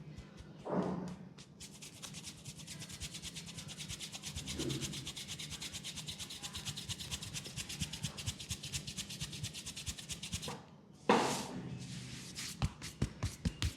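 Hands rubbing briskly over skin in a massage, a fast even rhythm of many strokes a second that stops about ten seconds in. Then comes one sudden loud hit, and near the end quick regular strikes begin.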